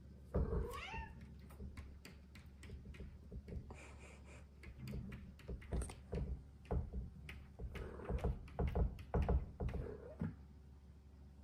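Bengal cat meowing once near the start, then pawing and scratching at a wooden door: a run of short thumps and knocks that grows busier in the last few seconds.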